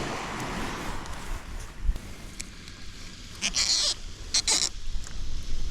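Electrical tape being pulled off the roll in two short, squeaky rasps, about three and a half and four and a half seconds in.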